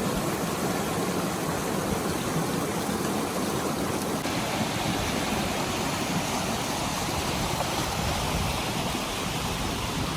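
Steady rushing noise of flowing water, even and unbroken, with the hiss brightening slightly about four seconds in.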